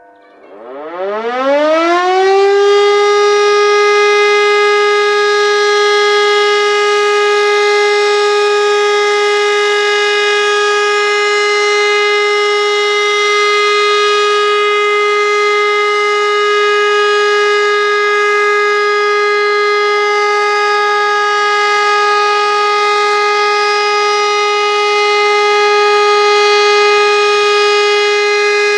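Civil-defence siren starting up, its pitch rising for about two seconds, then holding one steady, unwavering tone. A continuous steady tone rather than a rising-and-falling howl is the German all-clear (Entwarnung) signal.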